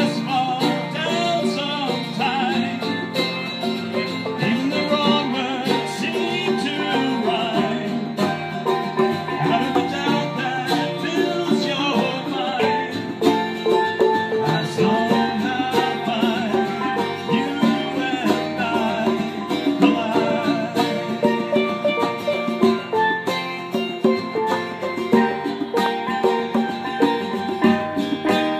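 Live acoustic band music: a steel pan struck with mallets over a strummed acoustic guitar and hand-played conga drums, in a steady rhythm.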